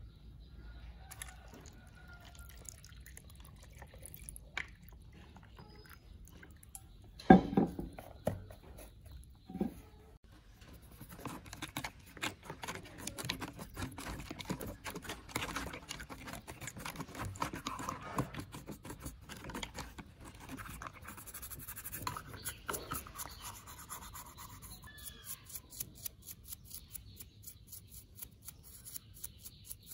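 Stiff-bristled brush scrubbing a white plastic AirPod part in foamy liquid: a fast, scratchy rubbing that starts about eleven seconds in and runs for about a quarter of a minute. A single sharp knock about seven seconds in is the loudest sound, with a smaller one a couple of seconds later.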